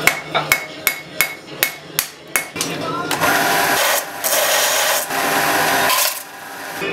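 Hand hammer striking hot steel on an anvil: a run of sharp, ringing blows, about three a second. About three seconds in it gives way to a Cocraft HBD 500 bench belt sander grinding a piece of steel, a steady hiss with two short breaks, ending about six seconds in.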